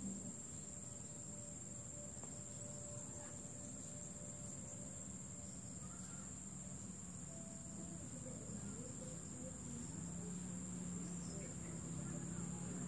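Insects droning steadily at a high pitch over a low background rumble.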